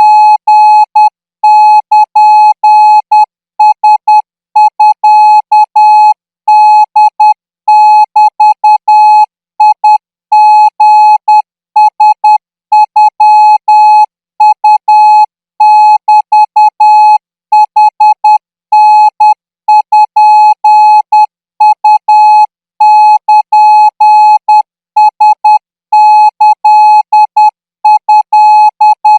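Morse code practice signal: one steady beep tone keyed on and off in short dots and longer dashes, at a training speed of 14 words a minute.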